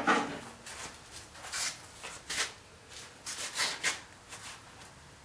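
Scattered short scrapes and knocks of hands and steel crowbars being handled at a rusty, seized blacksmith's vise. A louder knock comes at the start and a quick cluster comes after about three seconds.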